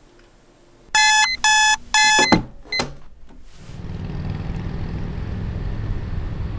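Digital alarm clock going off: three loud, even beeps about a second in, followed by a couple of short clicks. After that a steady low rumble of outdoor background noise sets in.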